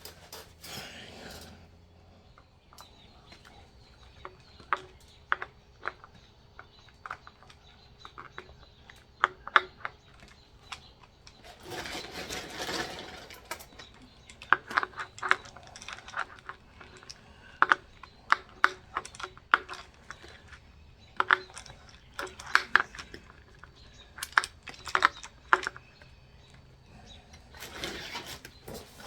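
Irregular sharp clicks and light metallic clinks, some in quick clusters, of small engine parts and hand tools being handled. A short rustling swish about twelve seconds in and another near the end.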